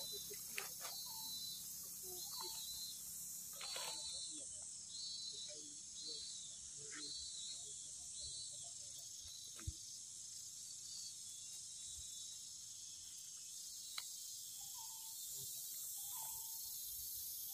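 Steady high drone of insects, with a series of short high chirps repeating through the first half and a few short mid-pitched calls near the end. A few sharp clicks stand out.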